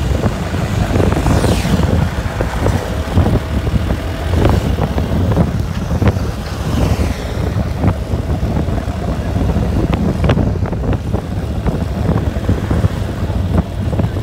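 Vehicles driving along a road: steady engine and tyre rumble, with wind buffeting the microphone in gusts throughout.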